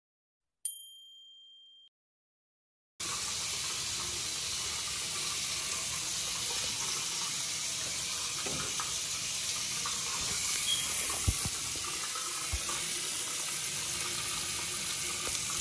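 A single notification-style ding that fades out, then, after a few seconds of dead silence, a bathroom sink tap running steadily with a few faint knocks.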